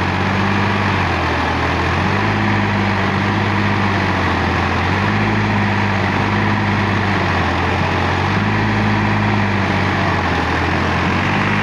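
Sonalika DI 50 RX tractor's diesel engine running, its low note swelling and dropping about every two and a half seconds.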